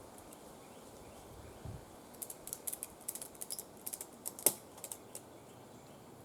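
Ratchet strap being cranked tight around the tree trunk: irregular runs of sharp ratchet clicks from about two to five seconds in, with one louder click about four and a half seconds in.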